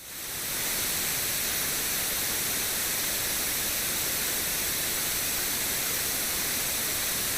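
A steady, even hiss with no tone or rhythm, fading in over the first second and then holding level.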